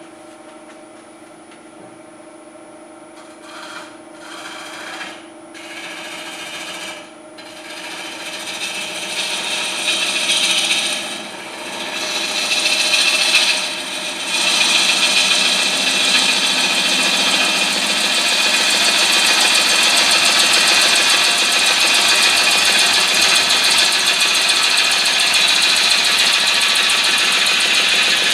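A bowl gouge cutting a wet hard maple bowl blank spinning on a cast-iron wood lathe, over the steady hum of the lathe's VFD motor. The cutting comes in short passes at first, then runs as one continuous loud shaving sound from about halfway through.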